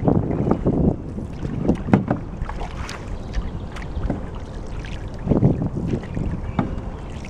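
Canoe paddle strokes splashing and dripping in the water, with a few short sharp ticks, and wind buffeting the microphone in low gusts, strongest near the start and about five seconds in.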